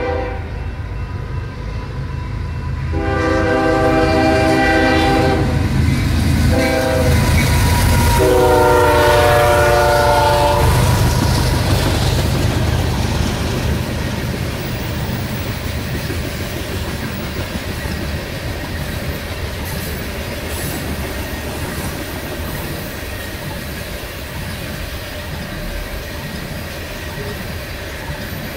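Freight train air horn sounding the grade-crossing pattern: the tail of a long blast, then long, short, long. The locomotive passes loudest about eight to eleven seconds in, and covered hopper cars follow with a steady rolling rumble and clattering of wheels over the rail joints.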